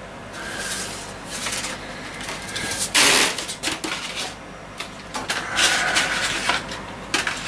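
Sandpaper rubbing along the wooden butt of a snooker cue in a few separate hand strokes, with a louder scrape about three seconds in.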